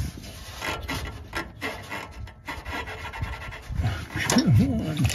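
Rubber coolant hose being twisted and worked off the metal pipe of a Prius exhaust gas heat exchanger, rubbing and scraping, after the hose has broken free from its heat-baked grip. A short wavering squeak comes near the end.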